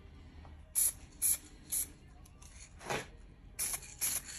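Aerosol spray-paint can hissing in short bursts: three quick squirts about half a second apart, a pause, then three more.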